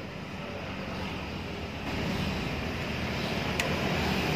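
SM Sport FE3's 400cc two-cylinder DOHC engine idling steadily.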